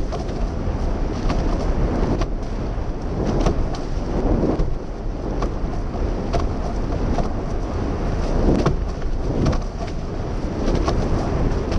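Wind buffeting the camera's microphone over rushing water, as a sailing catamaran's hulls drive through chop at speed, with many sharp splash hits of spray.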